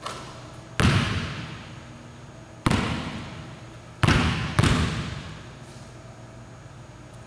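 Basketball bouncing on a hardwood gym floor: four sharp bounces, each ringing out in the gym's echo. The last two come half a second apart as the ball is dribbled.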